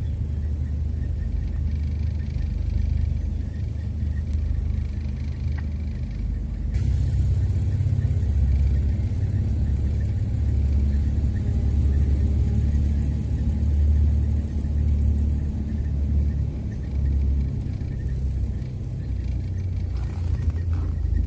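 Car engine and road rumble heard from inside the cabin while driving steadily along a paved road, a low, even drone that grows a little louder about a third of the way in.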